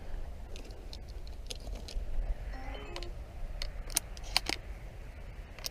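Wind rumbling on an action camera's microphone, with scattered sharp clicks and ticks of the camera and hide net being handled, the loudest a few seconds in.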